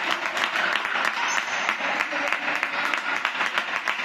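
Spectators clapping and applauding steadily, with some crowd voices mixed in.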